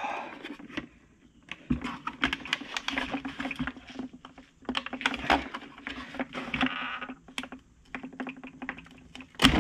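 Glued plastic taillight housing of a Jeep Grand Cherokee WJ crackling and clicking as its adhesive seal is pried and pulled apart by hand. It comes as rapid runs of small crackles in several spells, with brief lulls between them.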